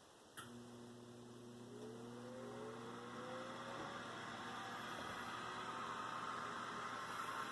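Whirlpool convection oven's fan switching on with a click about half a second in, then a motor hum and a rising whine as the fan spins up, growing steadily louder.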